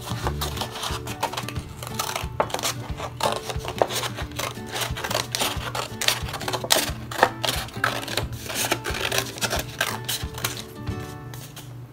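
Scissors cutting through a paper plate: a dense, irregular run of crisp snips and crunches, over background music.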